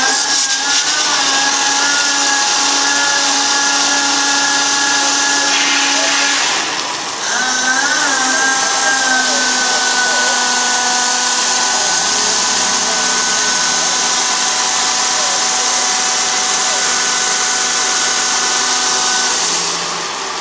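Rear spray heads of a mining water truck spraying water in a loud, steady hiss. The first burst lasts about seven seconds, breaks off briefly, then a second runs about thirteen seconds. A steady high whine runs under the spray, gliding in pitch as each burst starts.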